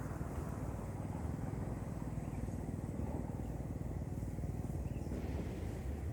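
Small boat engine running steadily, with a low, fast pulsing.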